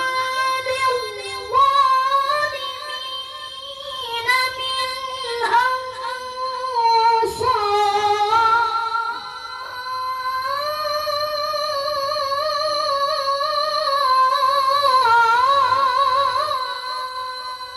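A child qari reciting the Quran in a high voice, drawing one long melodic phrase out on held notes with quavering ornaments and brief slides between them.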